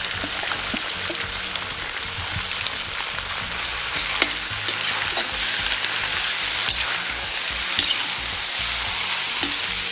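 Pork ribs and freshly added sliced onion sizzling in hot oil in a cast-iron kazan, with a metal spatula scraping and clinking against the pot as the onion is stirred in.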